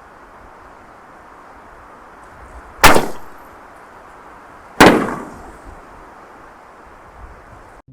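Canister aerial firework shells going off: two sharp loud reports about two seconds apart, each followed by a short echoing decay.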